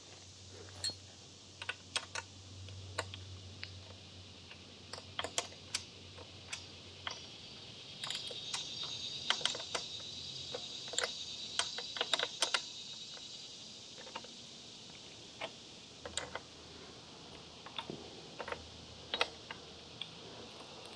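Irregular metallic clicks and taps of a wrench working a nut on a motorcycle's rear chain adjuster as it is tightened down, coming thickest in a run from about eight to thirteen seconds in.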